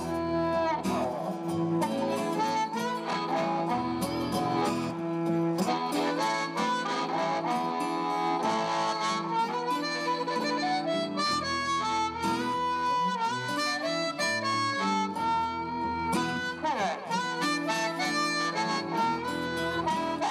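Live blues harmonica playing lead, held cupped in the hands, over acoustic guitar and electric cello accompaniment.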